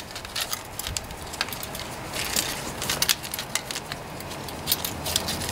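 Irregular small clicks and scrapes of a flat steel recoil starter spring being pushed, coil by coil, into the plastic pulley of a Subaru EA190V engine's recoil starter.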